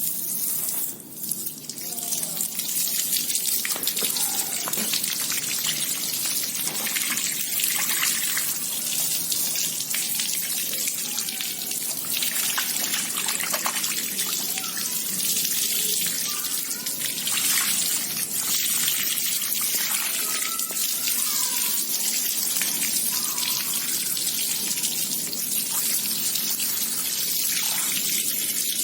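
Water running steadily onto a motorcycle engine, rinsing off the soap-and-diesel cleaning mix: a continuous splashing hiss.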